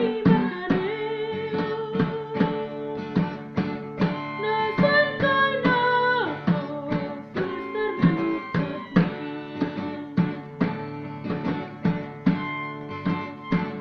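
Acoustic guitar playing a song, with quick plucked and strummed strokes under a held melody.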